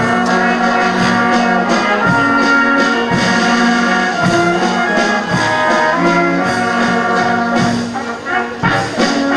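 Brass band playing a waltz: brass and saxophones carrying the tune and held chords over a steady tuba bass.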